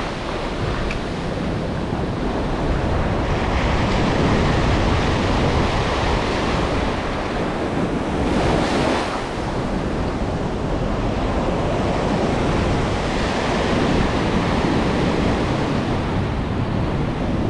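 Ocean surf washing onto the shore with wind buffeting the microphone, a steady rushing with one louder surge about halfway through.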